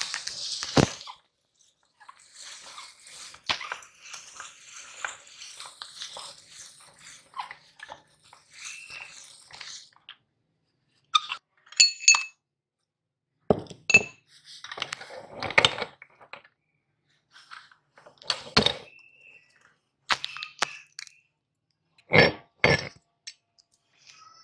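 Metal meat grinder crushing Oreo cookies, a crackly crumbling hiss for several seconds. Then sharp metal clinks and knocks as its screw ring and cutting plate are worked loose and taken off, ending in two close knocks.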